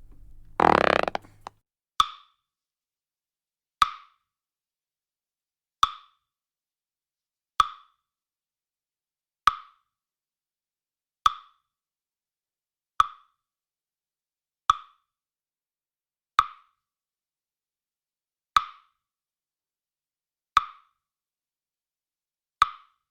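A series of finger flicks: twelve short, sharp snapping clicks, one about every two seconds. About a second in, the end of a short cartoon fart-toot sound effect comes just before the first flick.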